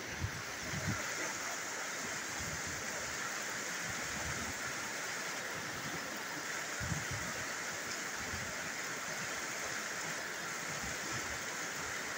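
Muddy floodwater rushing in a fast torrent down a lane, a steady churning roar of water. A few dull low thumps come about a second in and again near seven seconds.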